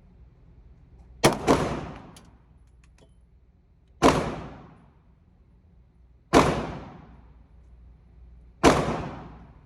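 Glock 19 9mm pistol firing slow, aimed shots. There are five reports: two in quick succession about a second in, then single shots roughly every two and a half seconds. Each one trails off in a ringing echo lasting about a second.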